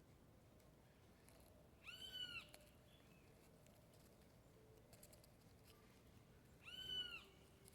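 A bird calling twice, about five seconds apart. Each call is a short, clear, mewing note that rises and then falls in pitch.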